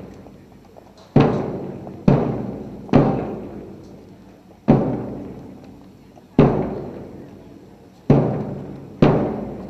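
Marching band bass drums struck together in a slow, uneven beat, seven strikes each ringing out and fading before the next.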